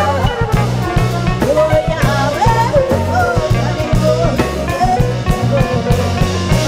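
Live jazz band playing, with a woman's voice singing a gliding melody over a steady low bass line and drums.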